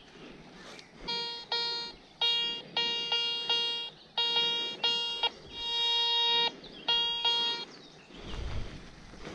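Garrett metal detector giving a string of electronic beeps, short and long, in a low tone and one an octave higher, with one longer tone in the middle. A few low thuds follow near the end.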